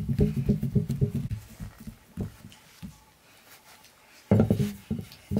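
Fingertips rapidly patting and pressing a round of soft dough flat on a metal tray, a quick run of soft thuds that dies away after about a second and a half. A short louder sound comes near the end.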